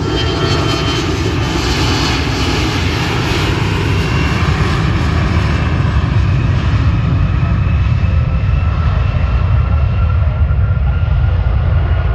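Regional jet's engines at takeoff power as it departs: a steady deep rumble with thin high whines over it.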